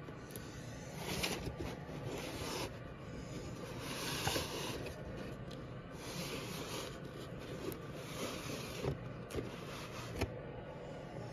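Packaging being handled and opened: rustling and scraping in uneven bursts, with several sharp clicks or taps, the clearest near the end.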